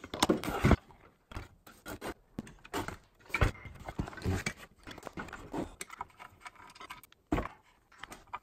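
Irregular knocks, clicks and rustling as a Makita 18V cordless circular saw's plastic housing and metal base plate are handled and turned over, with the loudest knocks in the first second.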